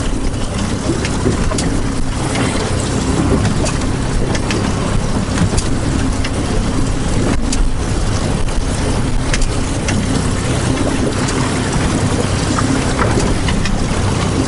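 Steady rushing of strong wind and water around a small fishing boat, with scattered light clicks and knocks.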